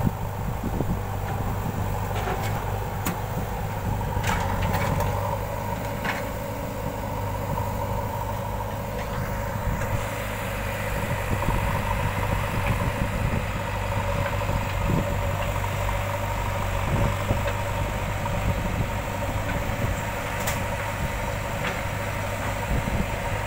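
Diesel engine of heavy earthmoving machinery running steadily, with a few short sharp knocks.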